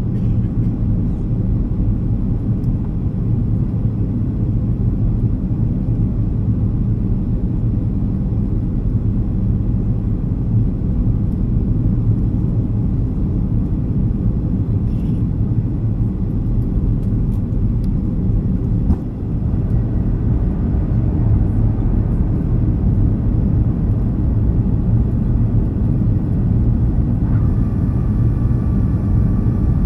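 Steady low roar of engines and airflow inside the cabin of a Boeing 737-300 descending to land, heard from a seat over the wing. A faint, steady high whine joins in near the end.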